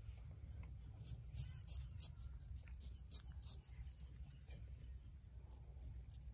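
Faint, irregular short scrapes and clicks of a straight-razor shave on lathered stubble around the lips, over a low steady rumble. A thin high steady trill sounds for about a second and a half in the middle.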